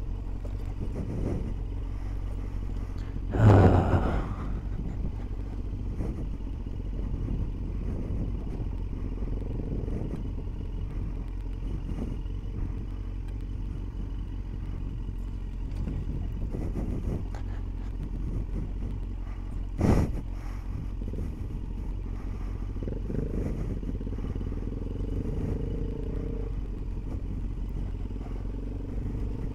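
Street motorcycle's engine running as it rides a rough dirt road, its note rising and falling with the throttle. A loud thump a few seconds in and a sharp knock about two-thirds of the way through, jolts of the bike on the rough road.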